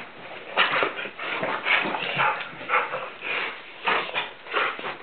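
Blue nose pit bull making short, rough play vocalisations, about two a second, while wrestling with a person.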